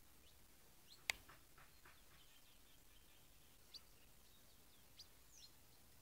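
Faint, scattered short chirps from small birds, with a single sharp click about a second in.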